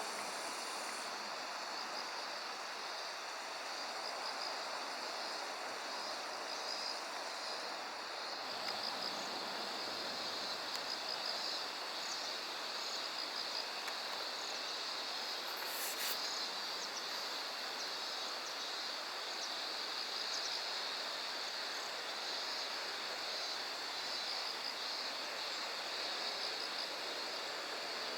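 Steady rushing of flowing water with insects trilling high above it, and one brief high tick about sixteen seconds in.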